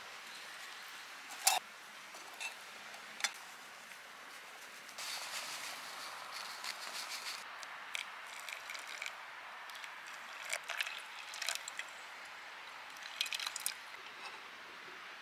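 Hot water poured slowly from a kettle onto ground coffee in a fabric drip filter, a soft trickle starting about five seconds in. Light clicks and taps of the filter, chopsticks and metal mug being handled come before it and after it.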